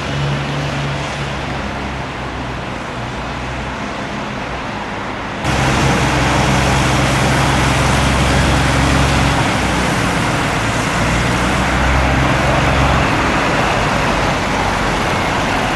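Vehicle engines running steadily with traffic noise, a low hum throughout. About five and a half seconds in the sound jumps abruptly louder, with a stronger engine hum.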